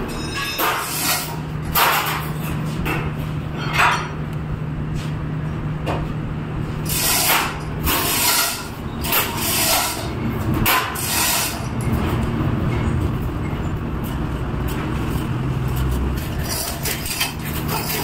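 Short scraping and rustling handling noises as rubber repair material is worked into a tyre sidewall cut, heard over a steady low hum. The noises come in scattered bursts, busiest in the middle.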